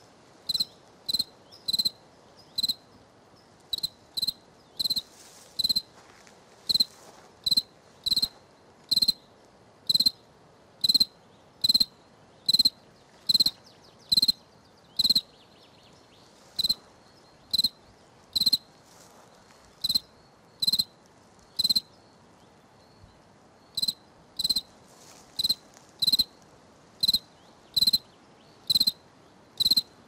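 Cricket chirping: short, clear chirps on one high pitch, repeated a little more than once a second, with two brief pauses, one about halfway through and one about three quarters of the way through.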